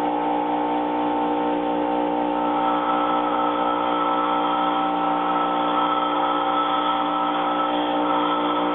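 Bench grinder with an aluminum oxide wheel running while a high-speed steel tool blank is held against the wheel and ground to a radius: steady motor tones under the continuous hiss of steel on the wheel. A higher tone joins about two and a half seconds in.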